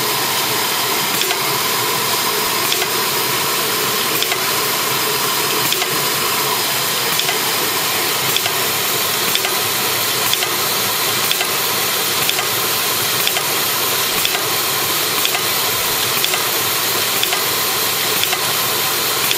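Aluminum corrugated fin machine running steadily: a dense, even mechanical whir and hiss with faint ticks, as the corrugated fin strip is fed through.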